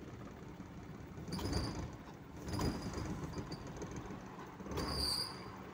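Perodua Kelisa running, with a steady low hum and three short squeaky swells about a second or two apart. The car is being checked for an A/C compressor and relay that cycle on and off ('tik tak') with a slow idle.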